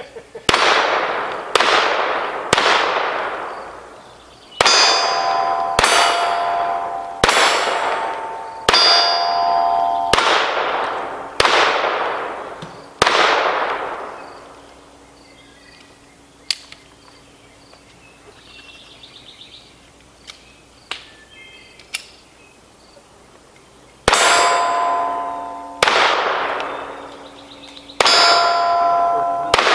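Pistol shots fired at steel plates, many followed by the ringing clang of a hit plate: a run of about ten shots roughly a second or so apart, a pause of about ten seconds with only a couple of small clicks, then three more shots.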